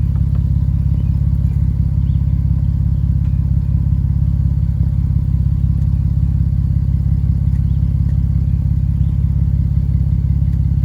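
Chevrolet Camaro engine idling steadily after a jump start, a loud, even low exhaust rumble.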